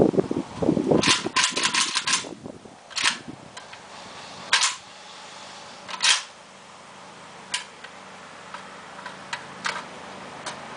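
A rapid string of shots from a Zastava M85 AK pistol in 5.56 mm, about eight sharp reports in the first two seconds. Three more single reports follow, about a second and a half apart, then only faint clicks and knocks of the gun being handled.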